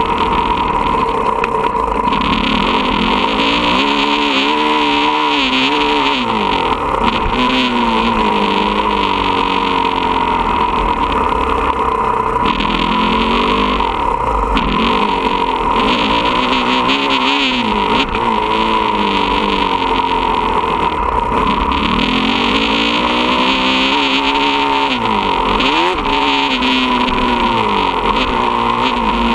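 Motocross bike engine revving up and falling back again and again as the rider accelerates and backs off around the dirt track.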